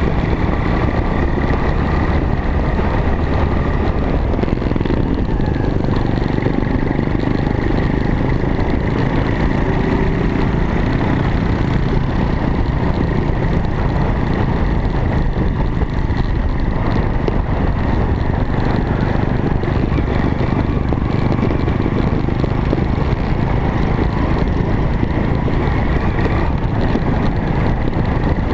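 Small off-road vehicle engine running steadily at a fairly constant speed, with no sharp revs, mixed with a continuous rushing noise.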